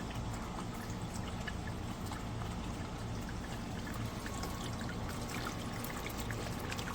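Water from a small solar-powered fountain pump (a bird-bath bubbler) trickling and splashing steadily, with many small droplet splashes throughout. The pump is running properly in the sun.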